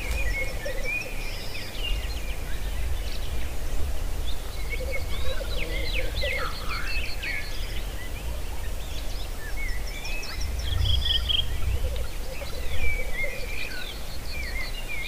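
Black grouse lekking: low bubbling coos from displaying males come in several stretches. Higher chirping bird calls run over them, with a steady low rumble underneath.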